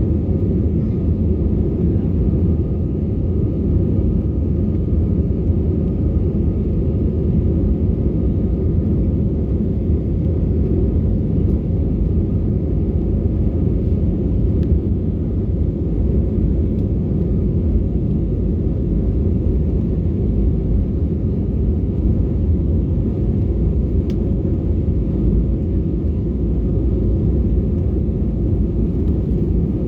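Airliner cabin noise during takeoff: a steady, loud rumble of the engines and airflow, with a faint steady whine above it.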